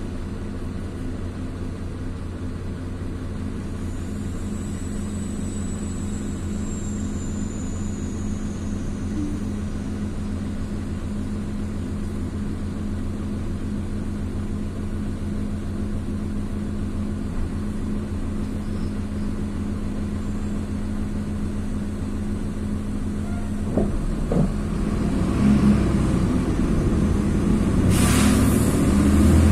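Bus engine idling with a steady low hum, then pulling away and getting louder about 24 seconds in, with a short hiss near the end.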